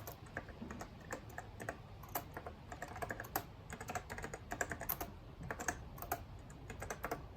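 Irregular keystrokes on a Macintosh 512K keyboard, clicking several times a second in uneven runs.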